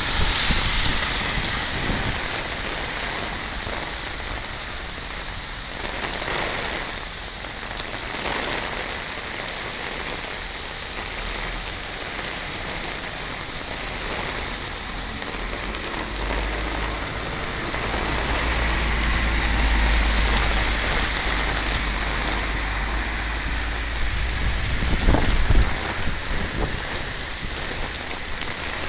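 Rain falling steadily in an even hiss. Past the middle a deep low rumble builds for several seconds, peaking in a short loud surge before it fades.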